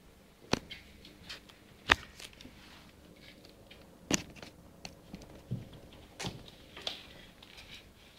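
A few sharp knocks and taps on a laminate floor, spaced a second or two apart, with faint rustling between.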